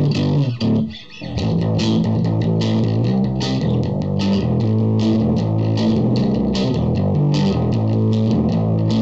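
A Japanese '62-reissue Fender Jazz Bass played fingerstyle through an Orange Terror Bass 1000-watt valve/Class D hybrid head with the gain cranked: a distorted bass riff in a steady rhythm. It breaks off briefly about a second in, then runs on.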